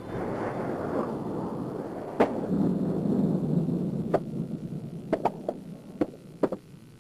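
Skateboard wheels rolling with a rumble that fades away. Sharp clacks of the board hitting the ground punctuate it: one about two seconds in, another at four seconds, and a quick run of several near the end.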